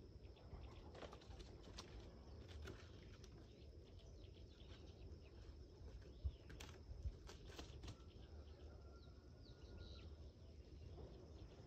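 Near silence: faint outdoor ambience with a low rumble, a couple of soft taps around the middle, and a faint thin bird-like whistle near the end.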